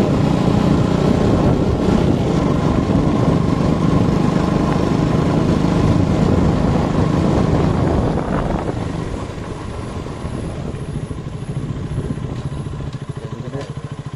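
Motorcycle engine running while riding, loud with a rushing noise for about eight seconds, then easing off to a quieter, slower run; near the end the separate engine beats can be made out as the bike slows.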